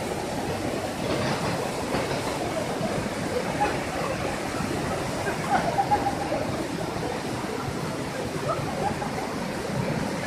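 Steady rushing of a small waterfall cascading over rocks.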